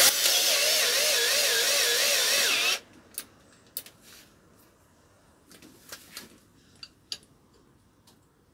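Cordless drill-driver running for almost three seconds, its whine wavering in pitch as it backs out a bolt, then stopping. A few light metal clicks follow.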